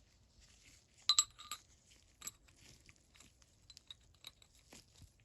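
Metal ratchets being handled: a couple of sharp, ringing metal clinks about a second in, then lighter, irregular ticks and taps of steel parts against each other and a hard surface.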